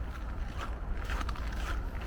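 Footsteps in wet slush and snow at a steady walking pace, about two steps a second, over a low rumble of wind on the microphone.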